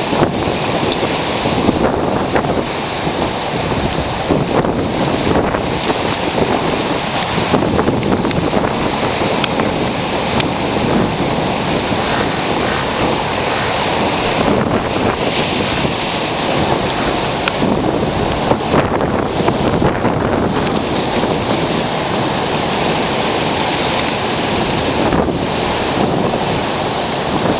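Ocean surf breaking and washing up the beach, a steady, unbroken rush of waves.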